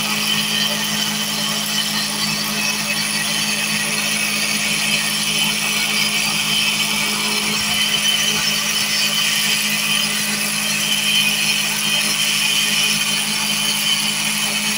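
Cotton candy machine with a cast spinner head running steadily, its motor giving an even hum under a constant whirring hiss as the head spins out sugar floss.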